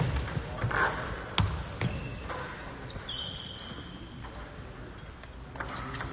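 Table tennis ball bouncing between points: several sharp, separate clicks in the first couple of seconds, then more clicks near the end as play starts again. A brief high-pitched squeak comes about three seconds in.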